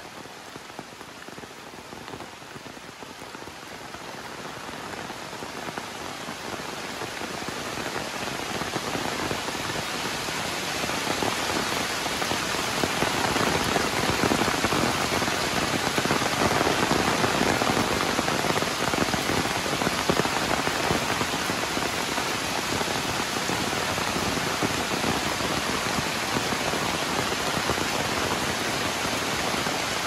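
Rain falling steadily, building heavier over the first dozen seconds and then holding as a dense, even downpour.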